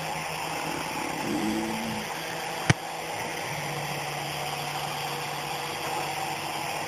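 Micro RC helicopter's small electric motors and rotors whirring steadily in hover, with a single sharp click about two and a half seconds in.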